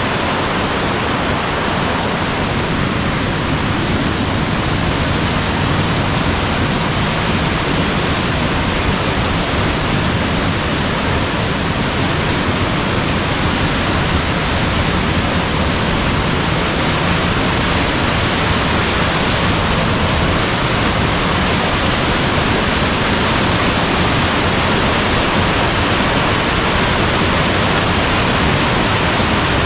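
Mountain stream rushing over rocks, a loud steady roar of water without letting up.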